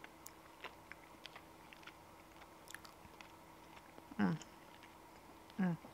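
A woman chewing a forkful of chicken in barbecue sauce: faint, scattered soft mouth clicks, then a short hum of her voice about four seconds in and another near the end.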